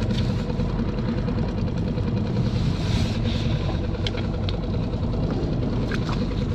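Outboard motor idling steadily, a low even hum.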